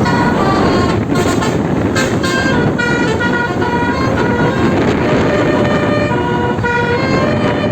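Bus 'basuri' telolet multi-tone horn playing a tune: several held notes sound together and step from pitch to pitch in quick succession, over the steady noise of the bus's engine and tyres.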